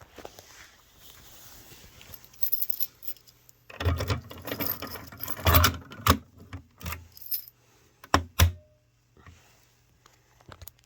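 Jangling, rattling handling noise for several seconds, then two sharp clicks near the end.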